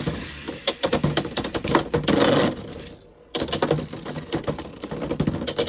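Two Beyblade X Wyvern Gale tops spinning and colliding in a clear plastic stadium: a rapid, irregular clatter of hits and clicks, with a brief lull about three seconds in.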